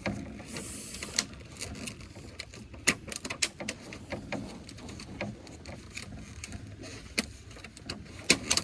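Scattered light clicks and knocks of tableware, such as plates, cups and chopsticks being set down and handled during a meal, at irregular intervals over a low background hum.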